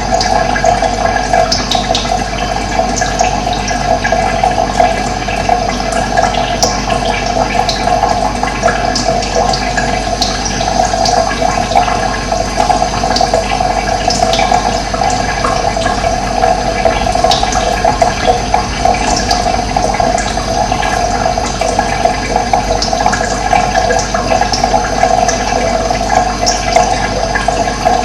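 Running water flowing steadily, with short bird chirps scattered over it.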